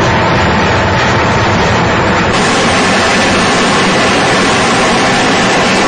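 Loud, steady machinery noise of a corn puff snack production line: first a mixer discharging corn grits into a bin, then, after a cut about two seconds in, the corn snack extruder running with a steady whine over the noise.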